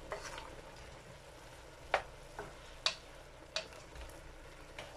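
Sliced mushrooms and onions sizzling in a frying pan as a wooden spoon stirs them. The spoon knocks sharply against the pan several times.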